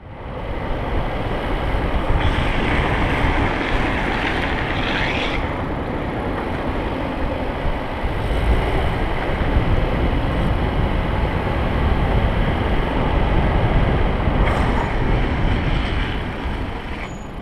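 Wind buffeting the microphone of a camera moving downhill at speed, over the rumble of longboard wheels rolling on coarse asphalt. A brighter hiss rises between about two and five seconds in, and again briefly near the end.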